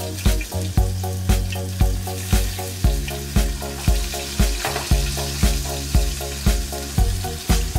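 Tofu frying in hot oil in a pan, a steady sizzle as the pieces are turned with chopsticks. Over it, background music with a steady beat of about two low hits a second is the loudest sound.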